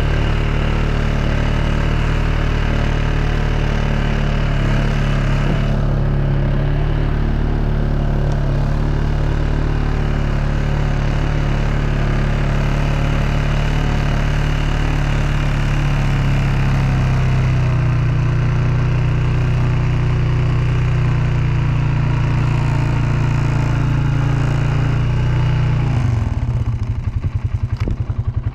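Compact tractor's engine running steadily, then slowing into an uneven pulsing near the end as it winds down to a stop.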